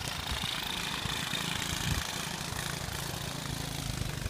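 An engine running steadily, with a rough, gusty rumble of wind on the phone's microphone.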